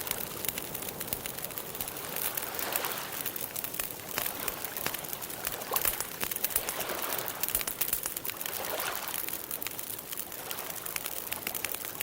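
Campfire crackling, with frequent sharp pops over a steady wash of gentle water sound.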